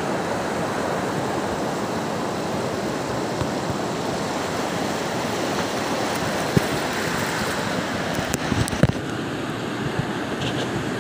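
Sea surf washing on a pebbly shore, a steady rushing noise, with a few sharp clicks about two-thirds of the way through.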